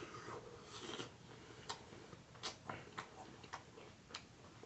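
Close-miked chewing of fruit: a string of short, irregular wet mouth clicks, a few a second.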